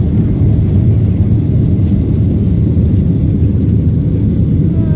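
Steady low rumble of an airliner's jet engines and rushing airflow, heard from inside the passenger cabin during the climb after takeoff.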